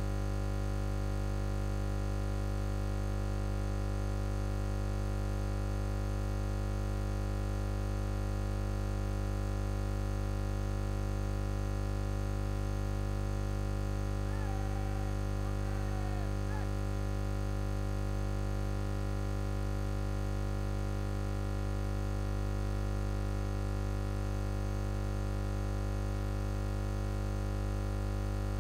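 Steady electrical mains hum from a public-address system: a low buzz with many overtones that does not change. A faint short warbling chirp sounds about halfway through.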